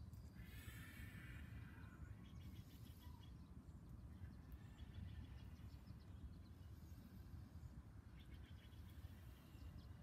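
Faint outdoor ambience: a steady low rumble, with distant birds chirping in short rapid trills several times.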